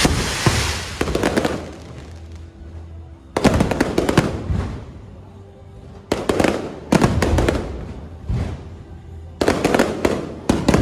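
Electronically fired fireworks going off in a string of separate volleys, about ten in all, at uneven gaps of half a second to two seconds. Each volley is a cluster of sharp bangs that rings on and fades before the next.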